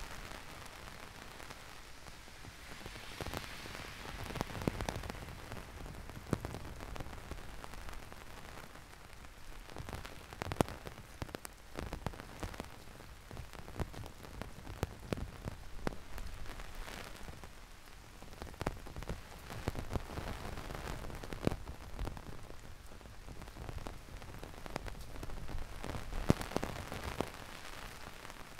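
Heavy rain falling steadily, with many irregular sharp taps of drops landing close by.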